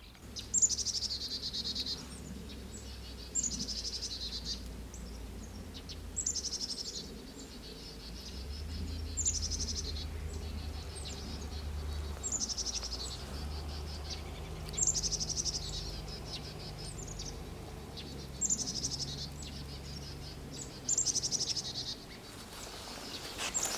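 A songbird singing a short, fast trilled phrase that falls in pitch, repeated about every three seconds, over a faint low rumble.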